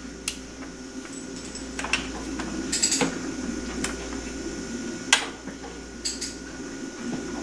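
Sharp metallic clicks and clinks of a battery charger's spring-loaded alligator clamp being worked and clipped onto a steel tool for an electrolysis rust-removal bath, about five clicks a second or so apart, over a steady low hum.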